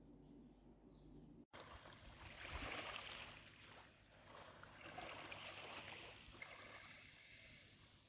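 Small waves of a calm sea lapping softly on a sandy shore, swelling and easing in gentle washes. For the first second and a half only a faint low hum is heard, cut off suddenly.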